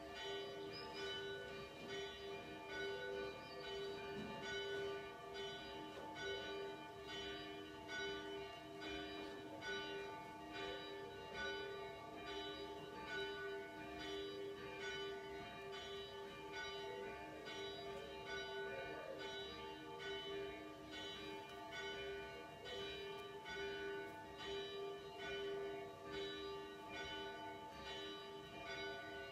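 Church bells ringing in a steady, continuous peal: repeated strikes over a lingering hum of overlapping tones, the ringing that calls the congregation to a service.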